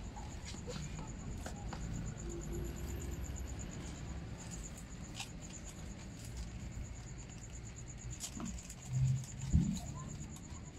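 A cricket chirping steadily in a fast, even pulse over a low background rumble, with scattered light clicks and a couple of dull knocks about nine seconds in.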